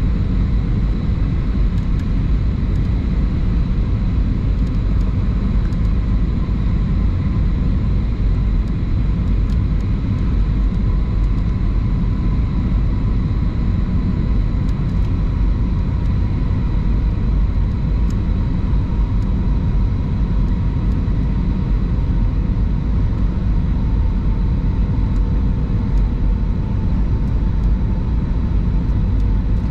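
Airbus A320 cabin noise heard from a window seat in the rear cabin: a steady, loud low rush of engine and airflow noise with a faint high whine that drifts slightly in pitch.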